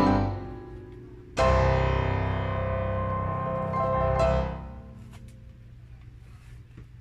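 Piano music. A chord from the end of a rising run fades, and about a second and a half in a loud chord is struck that rings for about three seconds and dies away. Faint chewing clicks follow near the end.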